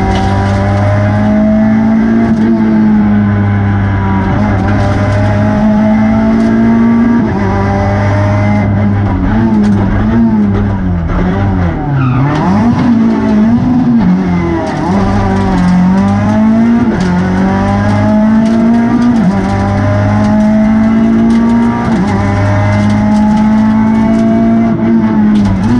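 Renault Twingo R2 rally car's 1.6-litre four-cylinder engine, heard from inside the cabin, running hard through a special stage. The engine note holds high for long stretches, then dips and climbs again several times midway as the car slows for bends and accelerates out.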